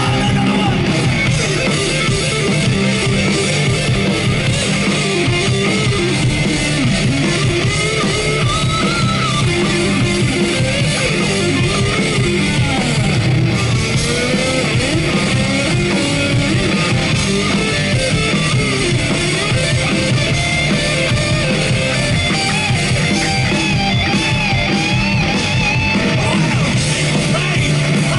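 Live heavy metal band playing loud: distorted electric guitars, one carrying a wavering lead line with pitch bends, over bass and a drum kit.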